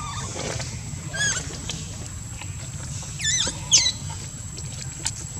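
Infant macaque squealing: three short, high, wavering cries, one about a second in and two in quick succession just after three seconds, over a steady low rumble.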